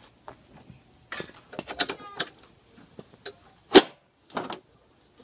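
A lawnmower's cloth grass-catcher bag and its metal frame being handled and fitted: a string of clicks, rattles and knocks with a brief squeak about two seconds in, and one sharp click, the loudest, a little before the end.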